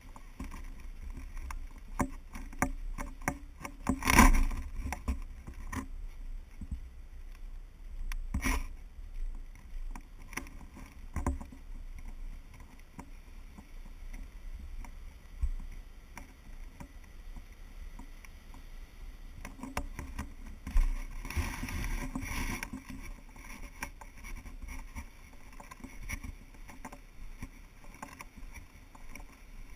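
Wind and handling noise on a GoPro's microphone as its wearer walks: a steady low rumble, with sharp knocks about four and eight seconds in and a louder rustling stretch a little past twenty seconds.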